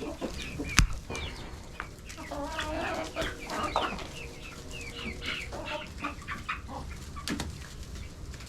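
A flock of chickens calling: hens cluck low while young chicks give many short, high, falling peeps. A single sharp crack about a second in stands out above the birds.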